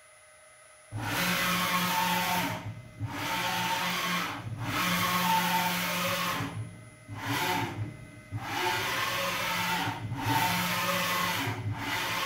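CNC vertical mill's Z-axis, driven by a Chinese servo motor, running the spindle head up and down in repeated moves. It starts about a second in: about six runs of one to two seconds each with brief stops, a motor whine that rises and falls in pitch as each move speeds up and slows down.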